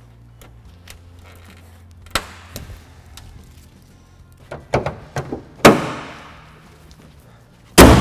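Plastic push clips pressed and snapping into the grille and bumper, a few light clicks, then two loud bangs with a ringing tail as the 2002–2006 Nissan Altima's hood is shut, the first the louder.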